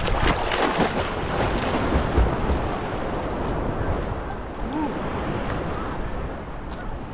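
Seawater sloshing and lapping around a camera held at the surface of a choppy sea, with splashes from swimming strokes in the first couple of seconds, then a steadier wash of small waves.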